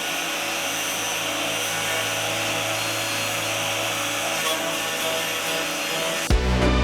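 Angle grinder running steadily with a constant hum, then cutting off suddenly near the end.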